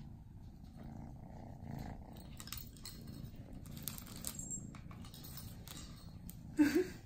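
Cat purring, a low steady rumble close to the microphone, with light rustling of a soft blanket. A short voiced sound comes near the end.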